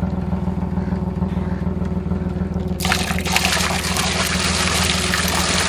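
Bucket of water poured over a boat's side into the canal, a splashing rush that starts about three seconds in, over a steady low engine hum.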